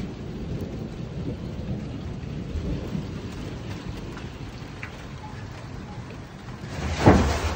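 Rain falling over a low rumble of thunder from the passing hailstorm, with a louder burst near the end.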